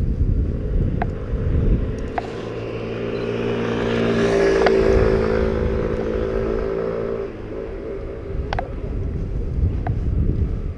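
A passing motor vehicle's engine hums, growing louder to a peak about four to five seconds in and cutting off about seven seconds in, over a low wind rumble on the microphone. Short sharp clicks come about once a second.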